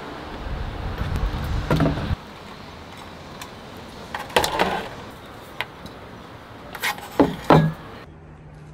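Camping gear being handled: a handful of sharp knocks and clanks as a portable gas stove and its canister are set out on a small camp table, with a low rumble in the first two seconds.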